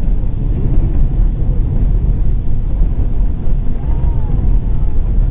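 Steady low rumble of an Airbus A330-300 heard from inside the passenger cabin: engine and airframe noise during the landing phase, with faint voices underneath.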